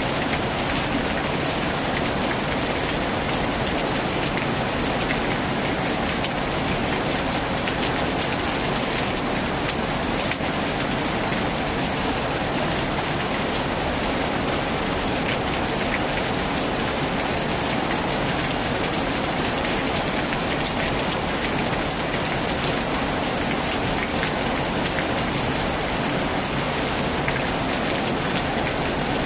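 Heavy rain falling steadily on a tin roof, an even hiss with scattered faint drop ticks.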